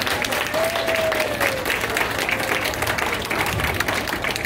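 Audience applauding, many hands clapping steadily, with one drawn-out call from a voice that rises and falls about half a second in.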